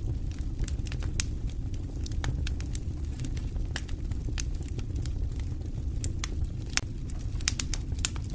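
Wood fire burning in a stone fireplace: a steady low rumble of flames with irregular sharp crackles and pops, which come thicker near the end.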